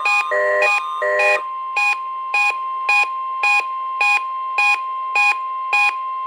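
NOAA Weather Radio's 1050 Hz warning alarm tone held steady, with a weather radio receiver's alert beeping over it. The beeps are a busier two-tone pattern for the first second or so, then single beeps about twice a second.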